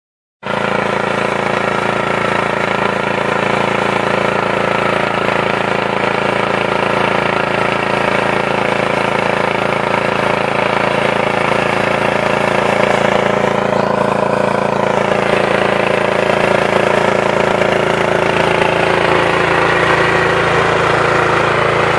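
Small single-cylinder engine of a walk-behind motor hoe (rotary tiller) running steadily at an even pitch while it tills the soil.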